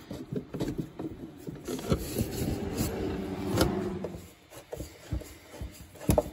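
Hand tools worked on a fender bolt: a socket ratchet turning, with irregular metallic clicks, taps and rubbing, and a sharper knock near the end.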